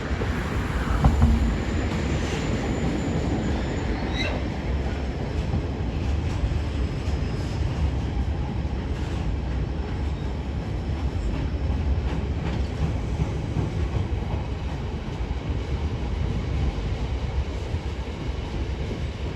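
Freight train's wagons rolling slowly past on jointless track, a steady low rumble of wheels on rail, with a faint high wheel squeal in the first few seconds.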